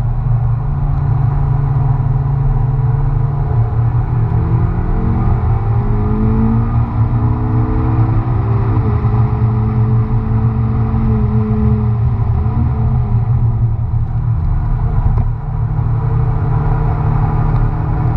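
McLaren MP4-12C's twin-turbo V8 heard from inside the cabin while driven hard on track, over a steady low rumble. The engine note climbs under acceleration, drops sharply at an upshift about halfway through, eases off, then climbs again near the end.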